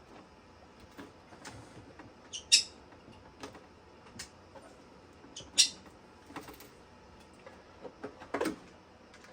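Hands working on small plastic parts of an RC truck: a string of sharp clicks and snaps, two of them much louder, about two and a half and five and a half seconds in, with lighter taps and a short rustle near the end.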